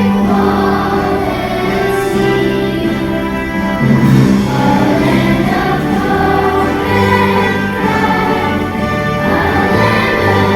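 A choir of school students singing with musical accompaniment.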